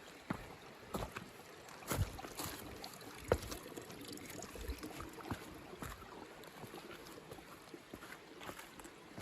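Shallow creek water running over rocks, with irregular knocks and crunches of footsteps stepping across the stones; the sharpest knock comes a little over three seconds in.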